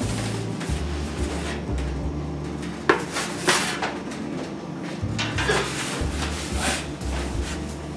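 Long-handled bread peel knocking and scraping against the oven's deck shelves and a wooden board as baked loaves are drawn out of a multi-deck bakery oven. It gives a few sharp clattering knocks, the loudest about three seconds in.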